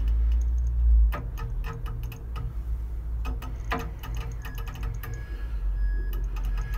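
Irregular light clicks and taps of hand work with a screwdriver, adjusting the trim on a throttle actuator, over a low rumble that is loudest in about the first second.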